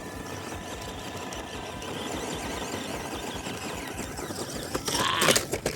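Small-scale RC crawler's electric motor and gear train whining as the rig struggles on a climb without getting up it, with a louder burst of rattling clicks about five seconds in.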